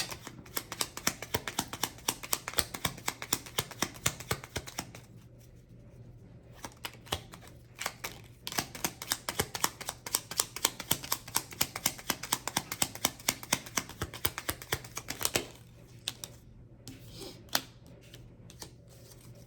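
Deck of tarot cards being shuffled by hand: rapid runs of papery clicks and flicks as the cards slap together, in two long spells with a pause between, then a few scattered taps near the end.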